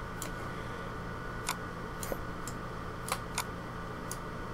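A handful of scattered, irregular computer mouse clicks over a steady low hum of room and computer noise.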